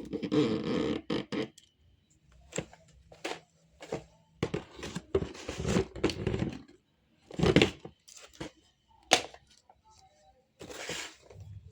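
Handling noise: irregular knocks, clicks, crackles and scrapes, as of a plastic toy and its packaging being moved about, with a denser rustling stretch in the first second and a half.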